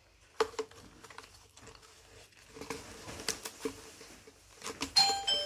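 Scattered light clicks and taps of small plastic LED tealights and their packaging being handled, with a brief high tone about five seconds in.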